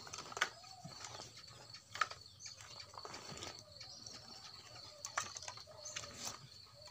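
Dry sticks and twigs being handled, with a few sharp cracks and clicks, while birds call softly in the background.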